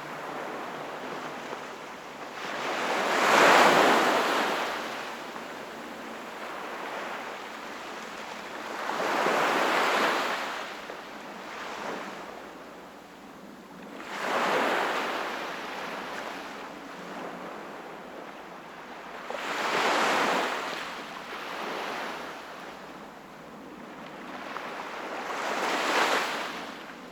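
Sea waves breaking and washing ashore, five surges about every five to six seconds, each a rising and falling rush of surf, the first the loudest.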